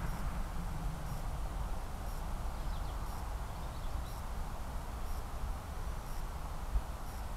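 Wind rumbling on the microphone over the distant, steady hum of a Tarot Ironman 650 multirotor's motors and propellers in flight, with a couple of faint high chirps about three seconds in.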